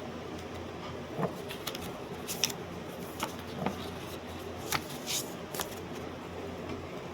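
A steady low hum and hiss, with a scattering of short clicks and rustles like small objects being handled.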